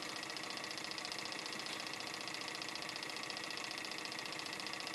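Model Stirling hot-air engine, home-made in 1964, running fast and fully warmed up: a steady, rapid, even ticking.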